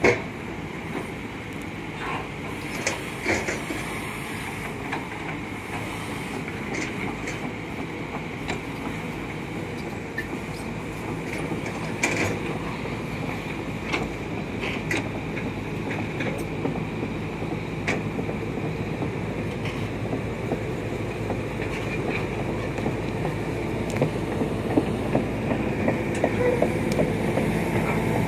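Hydraulic excavators' diesel engines running steadily as they dig, with scattered sharp metallic clanks and knocks from the working machines.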